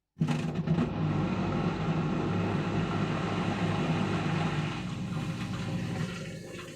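A 7 kg washing machine running its wash with an overload of wet towels and water, about 10 to 11 kg, which strains the motor. It makes a steady hum that starts abruptly and eases off near the end.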